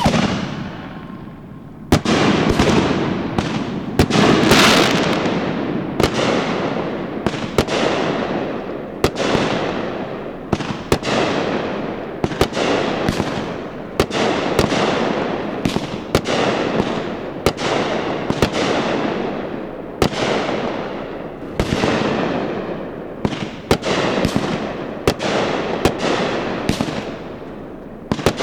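Aerial firework shells bursting one after another, roughly one bang a second, each bang trailing off as it fades.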